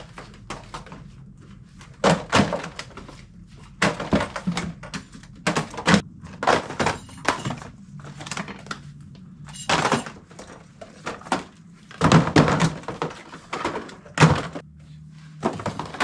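Merchandise being cleared off store shelving: a run of irregular thunks, knocks and short scrapes, some much louder than others.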